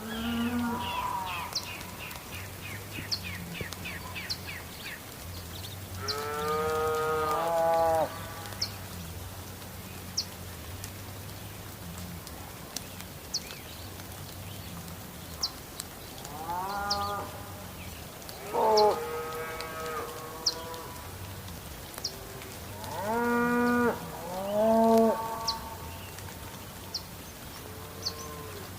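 Cats meowing in long, drawn-out calls, about eight of them, most in pairs, over a steady background of rain with scattered sharp drips.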